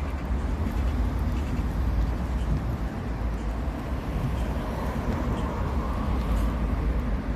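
Steady outdoor street background noise: a strong low rumble under an even hiss, with no distinct single event.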